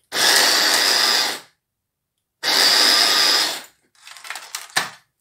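Electric mini chopper's motor running in two pulses of about a second and a half each, chopping an onion. Then a few plastic knocks and a sharp click as the motor top is lifted off the bowl.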